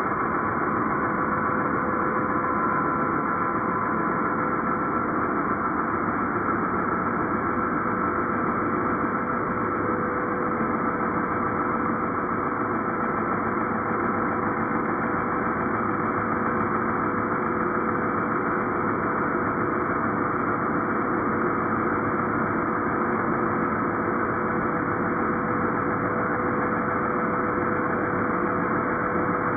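Angle grinder cutting steel, its sound slowed down to a steady, even drone with a couple of held tones over it.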